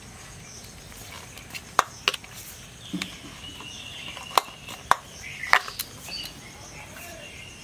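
Scattered sharp clicks and knocks, about six over a few seconds, from a hand working oiled dough in a stainless steel bowl.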